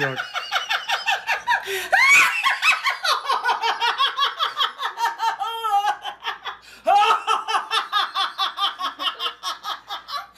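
High-pitched, hearty laughter in rapid repeated bursts, breaking off briefly about six and a half seconds in and then starting up again.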